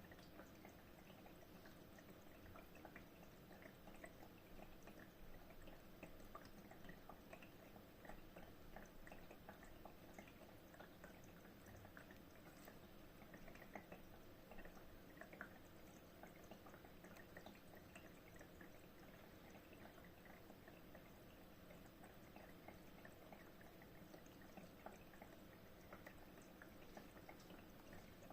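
Steam fireplace running: faint water trickling and dripping, with many small irregular ticks over a faint steady hum.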